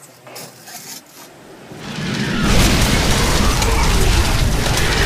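Sudden heavy tropical downpour: the rain builds over about two seconds into a loud, steady rush with a deep rumble and dense crackle of drops.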